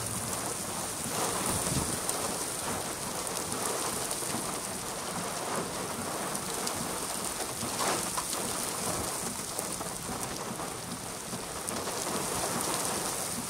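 Steady heavy rain falling on the car, heard from inside it as an even hiss, with a brief louder patch about eight seconds in.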